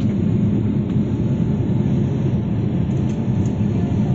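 Airliner cabin noise shortly after takeoff: the engines and rushing airflow make a loud, steady, low-pitched noise.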